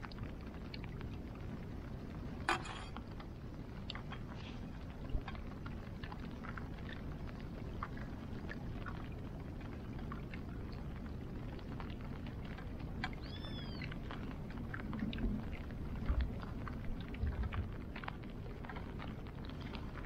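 Rain falling on the water and on the camera: a steady low rushing noise scattered with light ticks from drops, broken by a few louder knocks. A short chirp that rises and falls comes about 13 seconds in.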